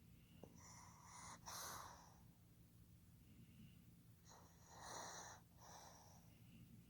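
Pug snoring in its sleep: two faint, rasping, snorting breaths about three and a half seconds apart, each made of two noisy bursts.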